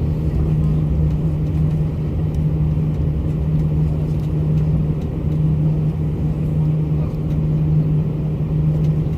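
Airliner cabin noise: the steady low drone of the engines and airflow heard from a passenger seat, with a constant hum underneath.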